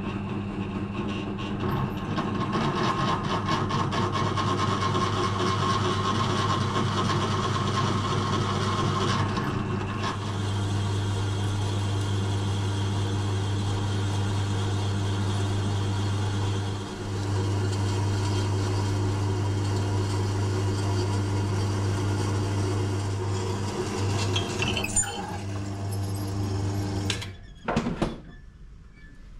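Pedestal drill press running steadily, a new twist drill bit cutting a hole through solid 20 mm steel bar stock, with a steady motor hum. The drilling eases briefly about halfway, the press switches off near the end, and a couple of sharp clicks follow.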